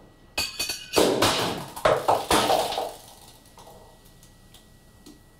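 Kitchen knife blade scraping and clinking against a glass champagne bottle: a few clinks, then several loud scrapes over the first three seconds.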